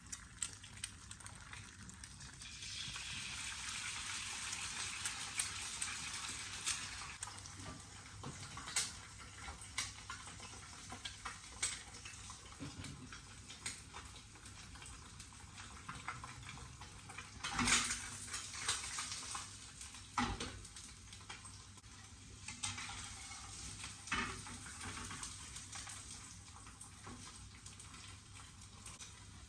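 Kitchen cooking sounds: utensils clinking and knocking against pots and dishes many times, with a steady hiss of sizzling or running water from about two to seven seconds in.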